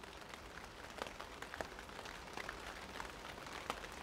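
Light rain falling, a quiet steady patter with scattered drops ticking irregularly on nearby surfaces.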